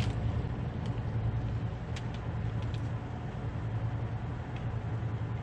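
Steady low hum of a car engine with road or cabin noise, with a couple of faint clicks.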